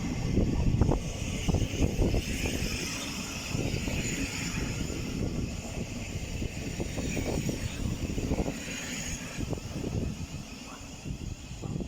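Thameslink electric train running and whining as it pulls out and draws away, fading near the end, with wind buffeting the microphone.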